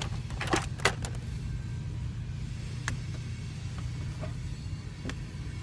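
Steady low rumble, with a few short clicks and squeaks from a scrubbing pad being worked over the inside of a car windshield.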